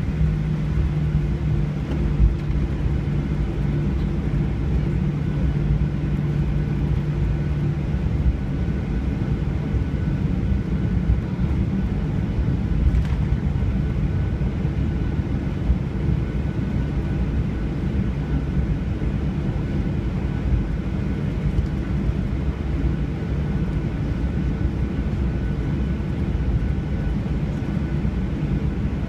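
Airliner cabin noise: a steady low rumble of jet engines and airflow, with a low hum that fades out about eight seconds in.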